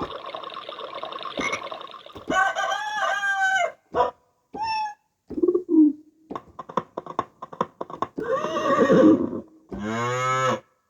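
A sound-effect kit playing a string of short, separate effects one after another, with brief gaps between them. Several are pitched calls whose pitch bends up and down, there is a quick run of clicks in the middle, and a steadily rising call comes near the end.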